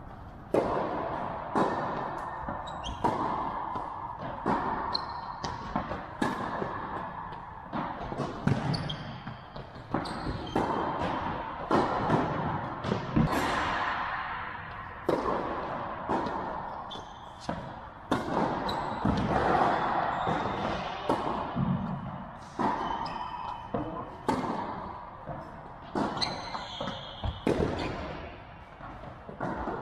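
Tennis rally on an indoor hard court: sharp, irregular racket hits on the ball and ball bounces on the court, each echoing in the big hall.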